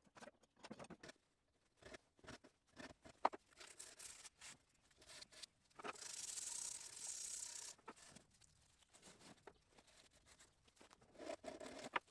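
Cherrywood knife handle being sanded by hand: faint scattered scrapes and light taps, with one sustained rubbing stroke about six seconds in lasting under two seconds.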